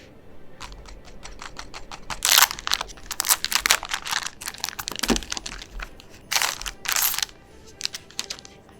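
Packaging of a sewing kit crinkling and rustling as it is handled and opened, with many small clicks and crackles and louder rustles about two and a half seconds in and again around six to seven seconds.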